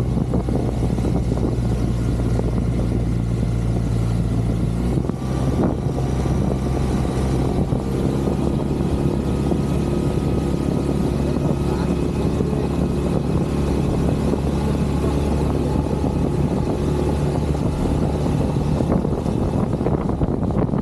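Outboard motor running steadily with the boat under way; the engine note changes about five seconds in, as with a throttle change.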